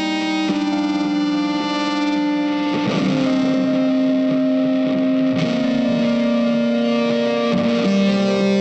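Background music: held, distorted electric-guitar notes, with the chord changing about half a second in, again near three seconds, and near the end.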